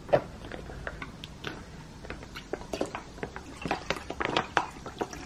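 Beef bone broth pouring from plastic pouches into a pot: irregular splashes, drips and small crinkles of the pouch, with one sharper click just after the start.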